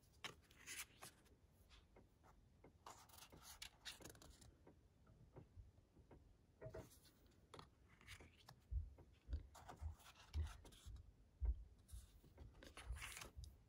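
Glossy card calendar pages sliding and rubbing against each other as they are handled and shuffled, in several short scratchy bursts, with a few soft low thumps in the second half.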